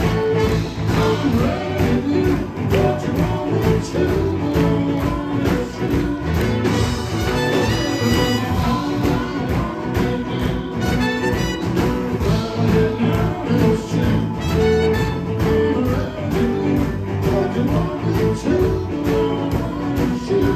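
Blues-rock band playing live, full band with a steady beat.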